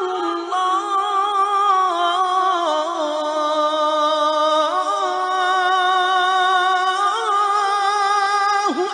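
A single long, unbroken chanted vocal line with a wavering pitch. It slowly falls over the first three seconds, then rises and dips again before breaking off near the end.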